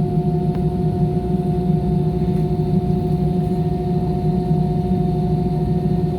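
Airliner engines running, heard inside the passenger cabin as a steady low hum with two held tones over it, before takeoff.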